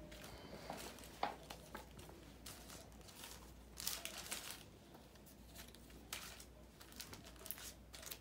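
Faint rustling and crinkling of Spellfire trading cards and plastic wrapping as they are handled and sorted, in short scattered bursts with light clicks of cards against each other.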